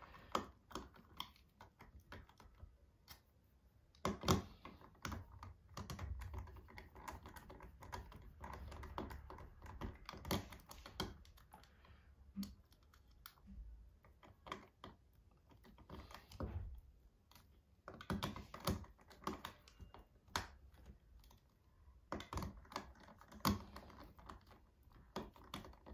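Irregular light clicks and taps from a small screwdriver turning the screw terminals of a small plastic adapter, clamping power wires into them.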